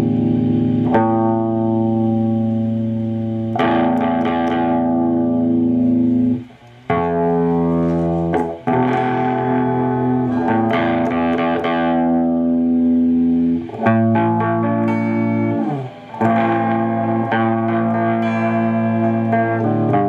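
Electric guitar with humbucker pickups played through a Graphic Fuzz–style fuzz pedal and a 50-watt tube amp's clean channel into a 4x12 cabinet, with the guitar's volume knob turned low so the always-full-on fuzz gives a clean tone. Chords are strummed and left to ring, a new one every few seconds, with two short breaks where the sound stops.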